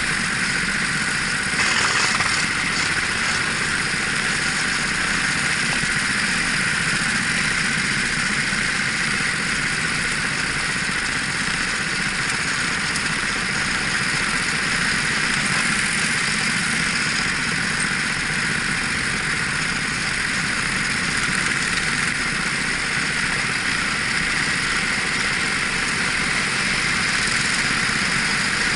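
Racing kart engine running steadily, heard from the driver's helmet camera as a continuous rushing noise, with a brief louder surge about two seconds in.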